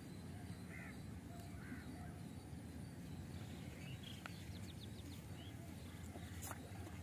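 Faint lakeside ambience: a steady low rumble with a few short, distant bird calls, and a quick run of faint ticks about four seconds in.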